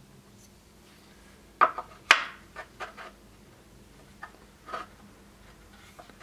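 Wooden scabbard halves and a fitting knocked and clicking together while handled: a handful of short, sharp knocks, the two loudest about one and a half to two seconds in.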